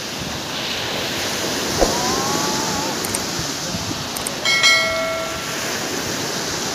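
Surf washing up on a sandy beach, with a brief call from a voice about two seconds in. About four and a half seconds in, a click and a bright bell-like chime from a subscribe-button animation play over it.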